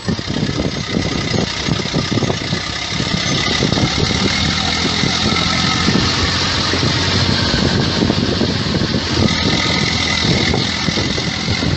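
Farm tractor's engine running steadily under load, with a dense rough rattle, while the tractor is bogged down in deep mud with its front end lifting.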